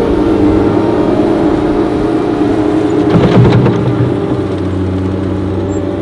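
Cat 247B compact track loader's diesel engine running under load as it moves dirt, a steady working drone with a louder, rougher surge about three seconds in.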